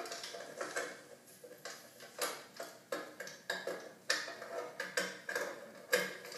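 Irregular small clicks and knocks of a cable and plastic connector being handled while an HDMI cable is plugged into the back of a TV.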